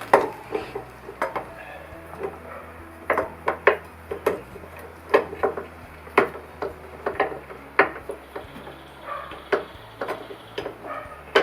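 Irregular metallic clinks and knocks, a dozen or so sharp strikes, as the Ural motorcycle's front wheel is worked out of the forks after its axle has been pulled.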